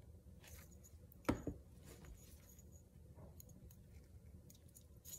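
Faint handling sounds of a small paper-covered glass bottle being pressed and turned in the fingers: light clicks and rustles, with one sharp knock about a second in.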